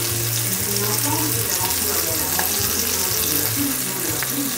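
Beef chunks frying in hot fat in a pot on the stove, a steady sizzling hiss as they brown.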